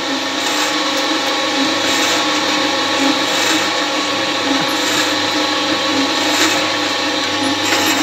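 A construction machine's motor running steadily, a dense steady mechanical noise with a constant whine in it, during hand-poured concrete work.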